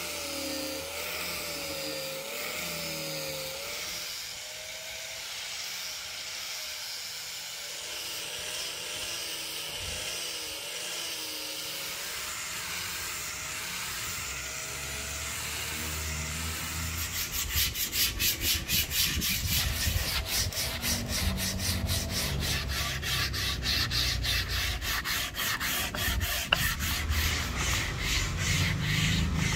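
Rosewood being sanded. For the first half a small motor runs with a wavering pitch; then, a little over halfway, quick back-and-forth sanding strokes take over, several a second and louder.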